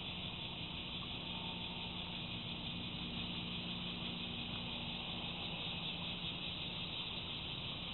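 Steady outdoor background noise: an even high-pitched hiss with a faint low hum beneath it, unchanging throughout. Nothing distinct is heard from the cat.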